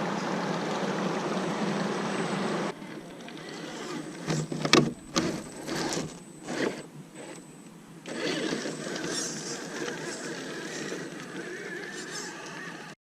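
Rushing water of a small waterfall stream that cuts off abruptly about three seconds in, followed by a few sharp knocks and clicks. The water comes back about eight seconds in and stops dead at the end.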